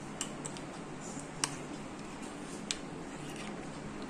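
A spoon stirring thick custard with grapes and nuts in a glass bowl, clinking lightly against the glass several times at uneven intervals, the sharpest clink about a second and a half in, over a faint steady hum.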